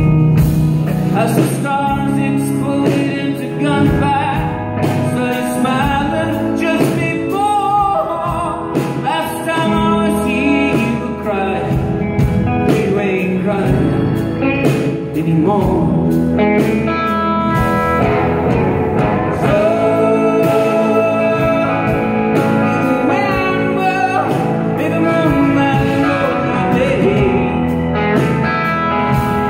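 A rock band playing live and loud: electric guitars over drums and bass.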